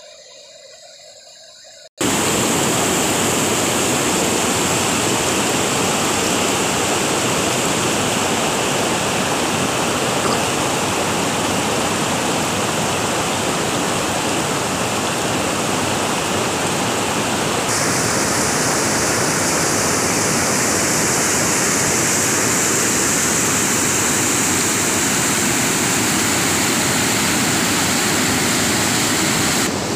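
Loud, steady rush of water pouring out of a rock tunnel outlet and churning white into a reservoir. It starts suddenly about two seconds in.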